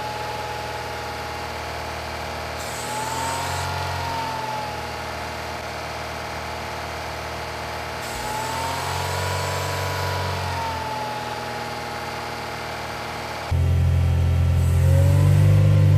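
Four-cylinder car engine running at a held fast idle of about 2000 rpm while steam is fed into the intake through the PCV vacuum line; its pitch rises and falls back twice. Near the end it changes to the louder, lower sound at the exhaust pipe.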